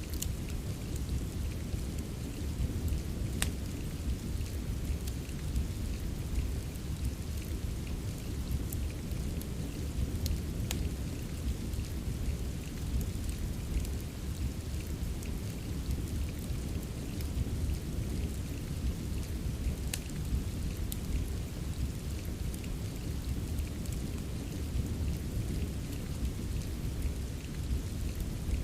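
Steady rain mixed with a fireplace: a dense low rushing throughout, broken by scattered sharp crackles and pops of the fire every few seconds.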